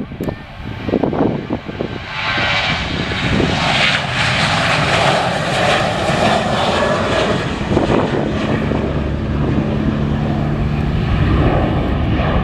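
Jet airliner's engines running loud as it passes, a broad steady noise that builds in the first couple of seconds, with a low steady hum coming in about two-thirds of the way through. Wind buffets the microphone at the start.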